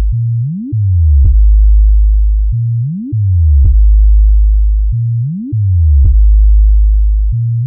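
Loud synthesized sub-bass test tones for a DJ sound-system check of the low frequencies. A deep steady bass tone is broken about every two and a half seconds by a quick upward bass sweep and a click, three times over.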